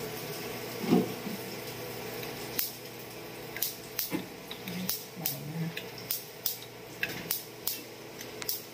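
Sharp metallic clicks and clinks at irregular intervals, a dozen or so, from hands handling the gas range's switch, valve and knob parts, after a single thump about a second in.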